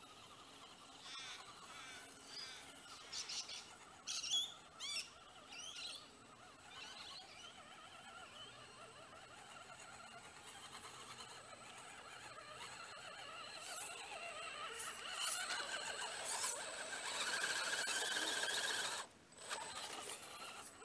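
Birds chirping in short rising and falling calls during the first several seconds, then the whine of a radio-controlled scale crawler's electric motor and geared drivetrain, growing steadily louder as the truck comes up close, with a brief cut-out near the end.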